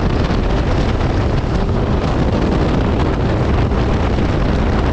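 Wind buffeting the microphone on an adventure motorcycle riding at highway speed, with the bike's engine and tyre noise underneath, steady throughout.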